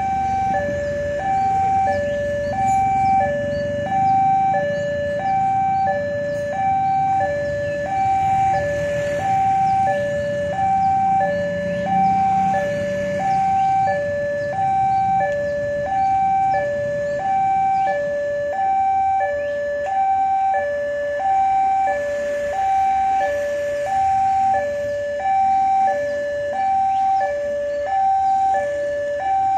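Railway level-crossing warning alarm: an electronic two-tone signal alternating high and low, about one high-low cycle a second, warning that a train is approaching. Motorcycle engines pass underneath during the first half.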